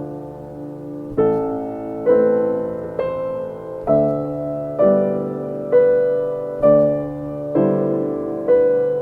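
Background piano music: slow, sustained chords struck about once a second, each fading before the next.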